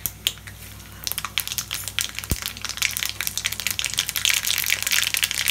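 Mustard seeds crackling and popping in hot oil in a steel kadhai as they splutter during tempering. The pops come sparse at first and grow thick and fast from about a second in.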